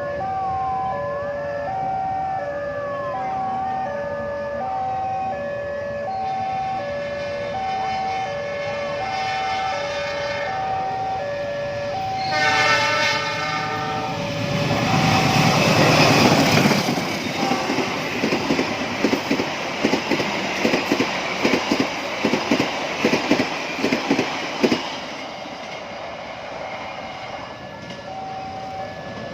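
Railway level-crossing alarm sounding its steady alternating two-tone signal, then a short train horn blast about twelve seconds in. A train hauled by two diesel locomotives rushes past loudly, followed by a run of wheel clacks over the rail joints that stops a few seconds before the alarm is heard again near the end.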